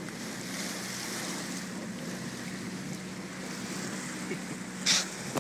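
Wind and water rushing past a sailboat on open sea, a steady hiss with a low steady hum under it. A brief sharp hiss stands out near the end.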